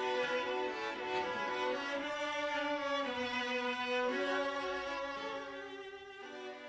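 Bowed string music led by a violin, playing long held notes that change every second or so, fading out gradually over the last few seconds.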